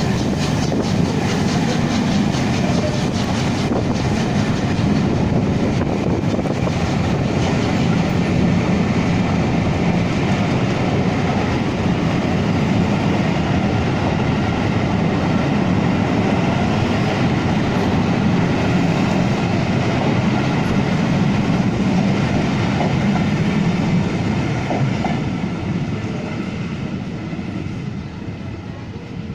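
Train of passenger coaches behind the steam locomotive 60163 Tornado rolling past on the rails, a loud, steady rumble of wheels that fades away over the last few seconds as the train moves off.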